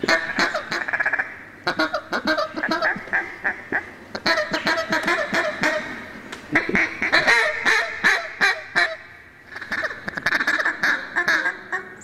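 A hand-blown duck call sounds quick runs of mallard-style quacks and fast chatter. There are several bursts with short pauses between them.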